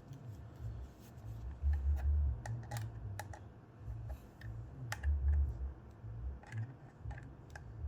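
Scattered light clicks and taps of a screwdriver and small plastic parts being handled while a T10 Torx screw is undone from a plastic cupholder assembly, with low thumps from handling about two and five seconds in.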